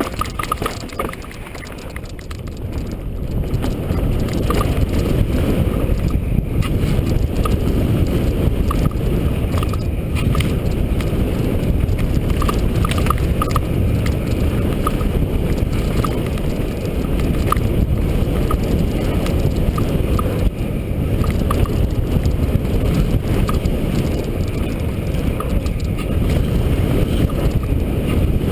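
Mountain bike riding down a dirt trail: steady rush of wind over the microphone mixed with tyre and trail noise, with small clicks and rattles throughout. It is briefly quieter about a second in.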